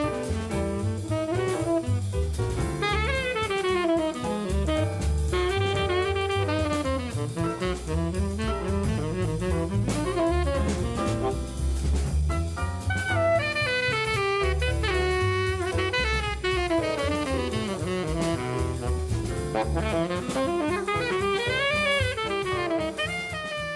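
Jazz background music with a drum kit under a lead melody of quick up-and-down runs.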